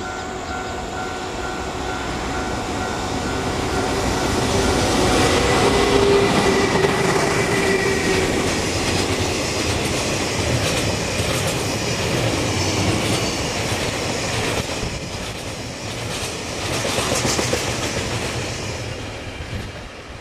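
Electric-locomotive-hauled freight train rolling past, wagon wheels clattering over the rail joints. A steady whine from the locomotive ends about eight seconds in, and the noise is loudest about six seconds in before easing off near the end.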